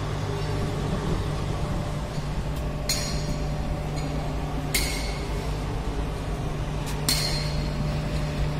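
Three sharp metal-on-metal clinks, each ringing briefly, about two seconds apart, over a steady low hum.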